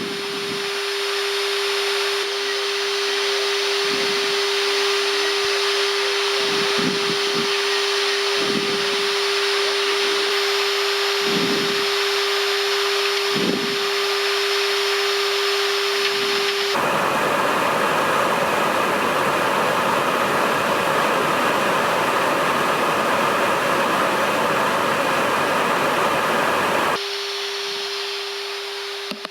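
Steady rushing air noise on a Boeing 747-400 flight deck in flight, with a steady hum running under it. About two-thirds through, the hum drops out and the rushing changes for roughly ten seconds, then the hum returns.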